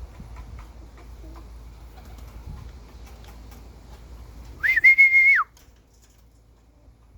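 A single loud whistle, under a second long, about four and a half seconds in. It rises to a high held note and drops away at the end. Before it there is a low rumble of wind on the microphone.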